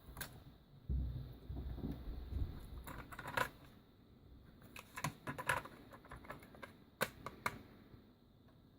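Faint mechanical clicks and clunks from a NAD 6150C cassette deck's transport mechanism, freshly repaired, with a low rumble about a second in and scattered sharp clicks, some in quick runs.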